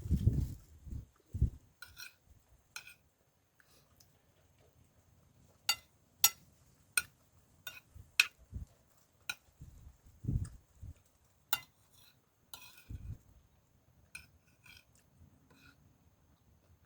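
Eating sounds: a spoon clinking against dishes in a string of sharp, ringing taps, with a few dull low thumps in between.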